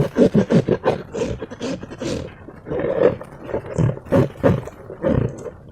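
Sticky slime being squeezed and stretched by hand: a quick, irregular run of wet squelches and sticky pops, several a second.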